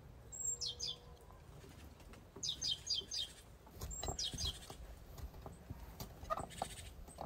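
Small songbird singing: short phrases of three to five quick, high, descending chirps, repeated every second or two. A few low knocks come around the middle.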